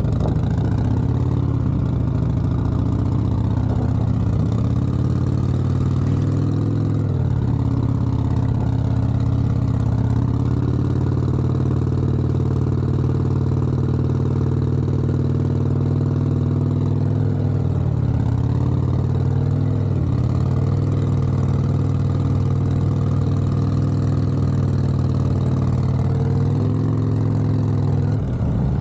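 Motorcycle engine running at low revs close to idle, with a few brief small rises and dips in engine speed as the throttle is worked during slow-speed riding.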